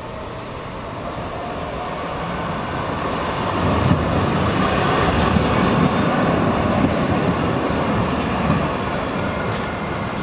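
Grenoble's Alstom TFS low-floor tram running past on its rails. It gets louder as it approaches, is loudest about halfway through as it passes close by, then fades as it moves away.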